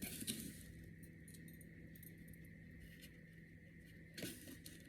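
Faint kitchen handling noises: a few light clicks and rustles just after the start and again near the end, over a steady faint hum.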